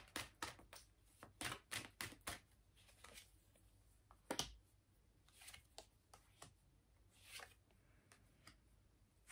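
Tarot cards being shuffled and handled: a quick run of soft card snaps over the first couple of seconds, then a few scattered ones, the sharpest about four seconds in.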